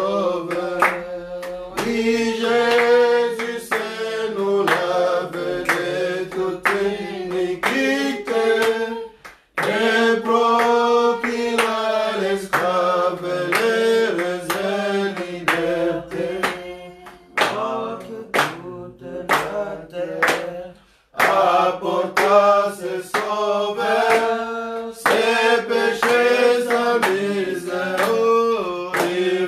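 Hymn singing with hand claps keeping the beat; the singing breaks off briefly twice, between lines.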